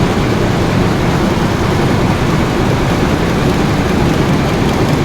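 Machine used for saree work running steadily, a loud even mechanical noise.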